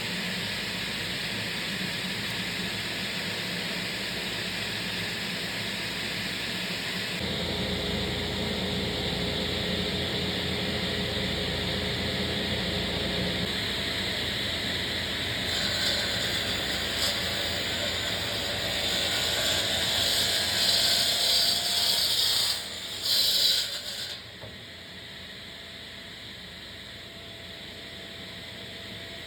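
Large woodworking power saw running steadily and cutting through 4-inch solid mahogany. The cutting noise builds about halfway through, is loudest a few seconds before the end, then drops off suddenly, leaving the saw running more quietly.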